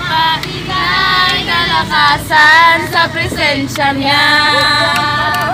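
Several young voices singing together, loudly and a little raggedly, over the steady low hum of a vehicle's engine.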